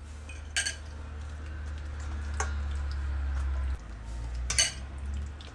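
Hands working a wet spice marinade into a whole raw chicken in a stainless steel bowl, with three sharp clinks against the metal bowl, the loudest near the end, over a steady low hum.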